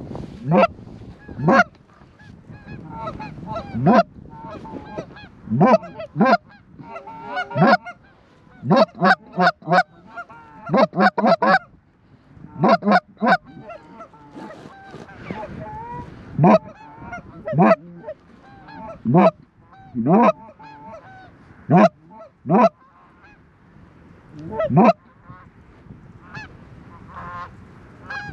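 Goose honks and clucks, loud and close, some single and some in quick runs of two to four, over a faint hiss.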